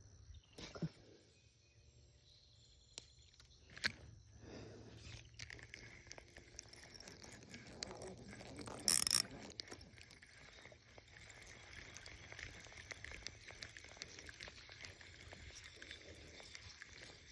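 Faint outdoor ambience with a steady high-pitched chorus of wild animals. There are a few sharp clicks, and about nine seconds in a brief louder rustle.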